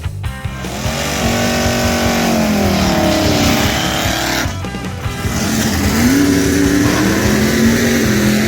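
Car engine running hard, its pitch holding, dropping, then climbing again, with rock music over it.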